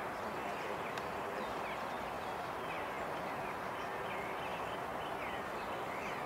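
Small birds chirping, short high calls repeating every second or so, over a steady background noise.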